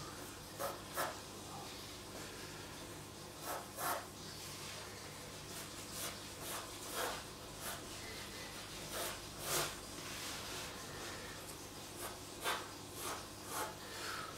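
Pencil sketching on a large sheet of paper: short, irregular scratchy strokes as an outline is drawn, over a faint steady low hum.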